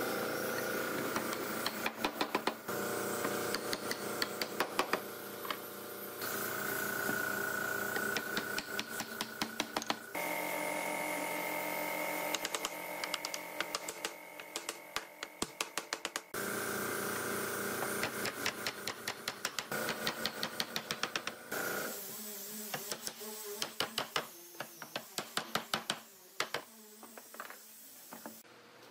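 Quick runs of sharp wooden knocks and taps as the chair's joints are knocked together during assembly, over a steady background hum that changes abruptly several times.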